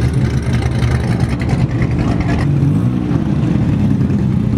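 Car engine running nearby at a car meet with a steady low drone, a brief rise and fall in engine pitch about halfway through like a light rev.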